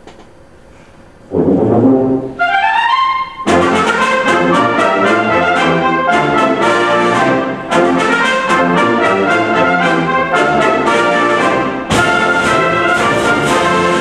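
Symphonic wind band playing loud, brass-led music. It comes in suddenly about a second in, climbs in a quick rising run, then plays short accented chords in a fast, steady rhythm, with a brief break near the end.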